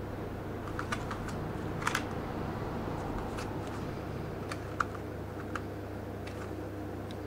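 Plastic blister pack being handled: a few scattered light clicks and crackles over a steady low hum.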